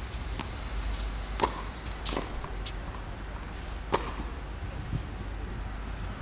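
A few scattered, sharp knocks of tennis balls, the loudest about a second and a half and four seconds in, over a low steady hum.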